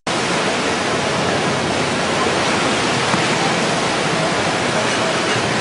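Steady, loud rush of the Ganges in heavy flood, its fast water churning without a break.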